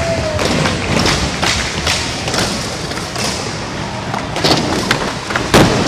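Skateboard wheels rolling on a concrete skatepark floor, with a series of sharp thuds and clacks of boards hitting the ground about once a second; the loudest thud comes near the end.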